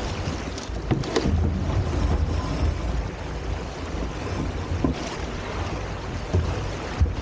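Wind buffeting the microphone and water rushing along the hulls of a Hobie Tiger F18 catamaran under sail: a steady rush with a heavy low rumble, and a short louder burst about a second in.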